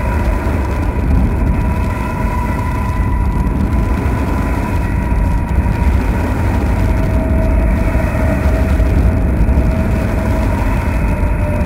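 Dark industrial noise drone from a Eurorack modular synthesizer: a loud, dense, steady wash of noise with a heavy low end and a held high tone, joined by a lower held tone about seven seconds in.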